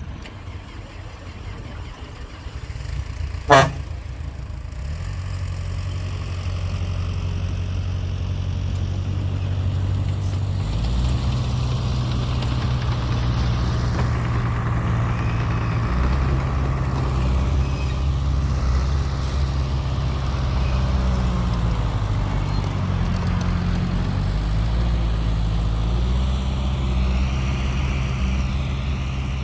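Heavy diesel engine of construction equipment running and working under load, its pitch stepping up and down as the throttle changes. A short, loud tone sounds once about three and a half seconds in, before the engine builds up.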